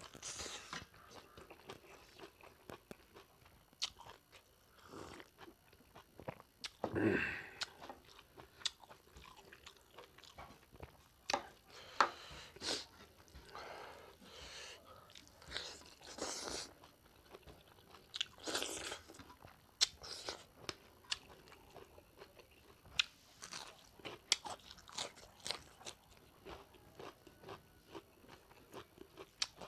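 A person chewing and biting into pig leg curry, with irregular crunches and clicks of eating.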